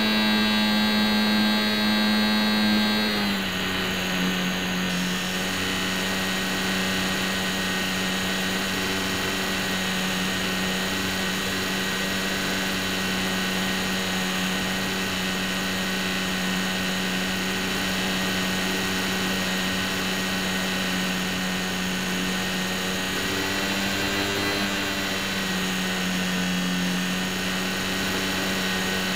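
Electric motor and propeller of a HobbyZone Champ RC plane whining steadily in flight, heard close up from the plane itself. The pitch steps down about three seconds in and rises a little for a few seconds near the end.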